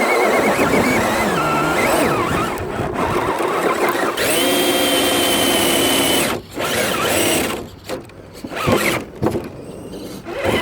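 Electric motor and gear train of an RC rock crawler whining under throttle, the pitch rising and falling as the driver works the trigger. About four seconds in it holds a steady high whine for roughly two seconds, then cuts off suddenly.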